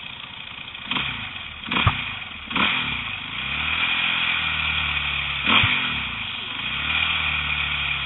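A vehicle engine revved up and down several times. Each rev starts with a sudden sharp noise and its pitch rises and falls. The owner judges this bad noise not good.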